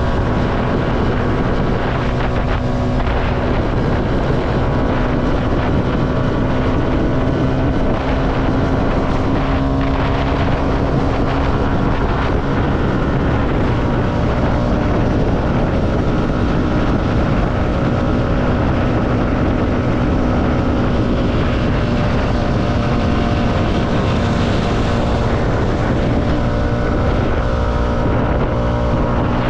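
CFMoto motorcycle engine running at a steady cruise, its note holding nearly even with only slight drifts in pitch, under wind rushing over the microphone.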